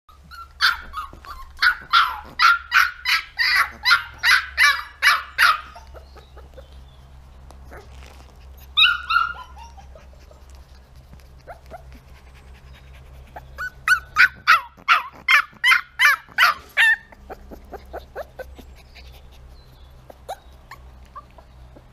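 Pyrenean Mountain Dog puppy yapping in quick runs of short, high-pitched barks, about two to three a second. One long run comes at the start and another a little past halfway, with a single falling yelp about nine seconds in.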